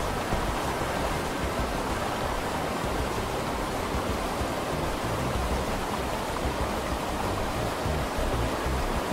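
Steady, unbroken rushing ambient noise, even in level throughout, with faint soft background music underneath.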